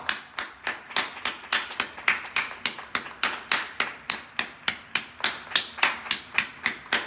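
Hands clapping in a steady, even rhythm of about four claps a second.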